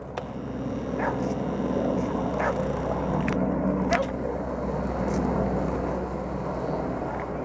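Steady low drone of a helicopter flying at a distance, its level rising slightly over the first couple of seconds and then holding.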